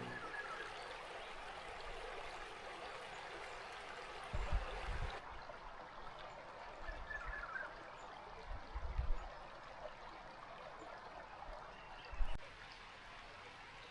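River water flowing steadily, with three short low thumps about four, nine and twelve seconds in.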